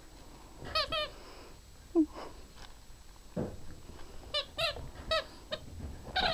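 Squeaky toy squeezed in short squeaks with a wavering pitch: two quick ones about a second in, then a run of four or five from about four and a half seconds on. A brief, louder, lower sound comes about two seconds in.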